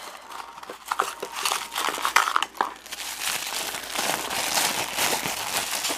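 A blind-bag toy packet being torn open and crinkled by hand, with a run of crackles and small clicks that gets busier about halfway through.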